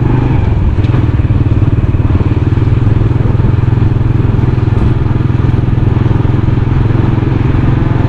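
Motorcycle engine running steadily while riding along a road.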